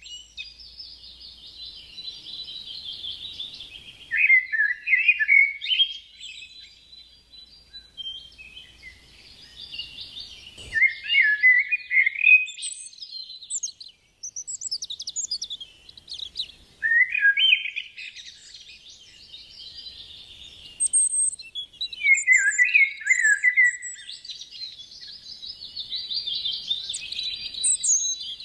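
Songbirds chirping and twittering: a softer, even trill throughout, broken by louder runs of quick, falling chirps about every six seconds.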